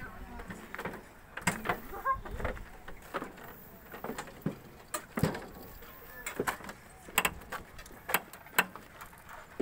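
Footsteps on a metal airliner boarding stair: a run of irregular knocks and clanks, closer together in the second half.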